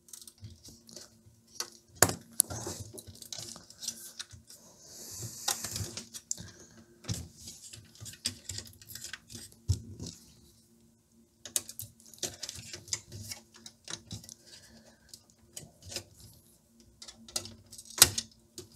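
Plastic front-panel clips of an amplifier being pried loose with a small screwdriver: scattered clicks, taps and scrapes of plastic against metal, with a sharp click about two seconds in and another near the end.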